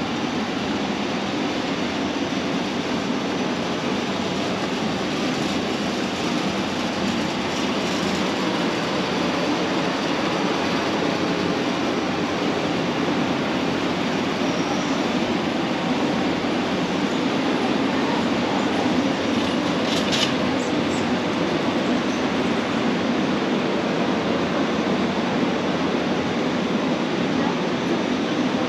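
Steady rumbling ambience of a large warehouse store, with a few short clicks about twenty seconds in.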